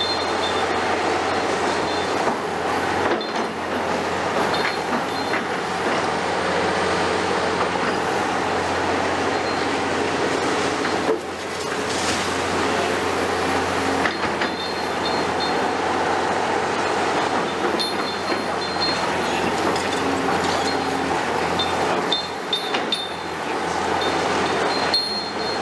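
Caterpillar 336E excavator running under load, its diesel engine and hydraulics working steadily as the demolition crusher bites and breaks a concrete wall, with crunching and scraping of concrete. Short high squeals come in near the start, in the middle and again near the end.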